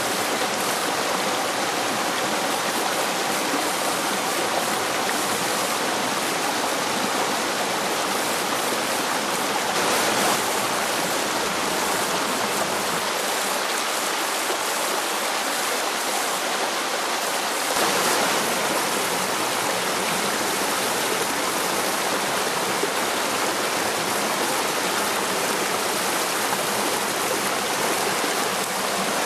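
Shallow rocky stream running over stones and small cascades: a steady rush and splash of water.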